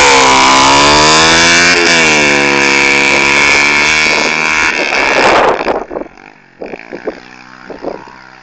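110 pit bike's single-cylinder four-stroke engine revving loudly as the bike pulls away across grass; the note dips, climbs again about two seconds in and holds. About five and a half seconds in it drops sharply to a faint, wavering engine sound in the distance.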